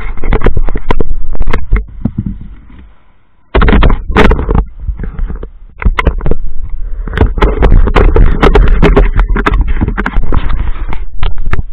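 Action camera being handled at close range: hands and clothing rub, scrape and knock against its body, loud and irregular, with a brief lull about three seconds in.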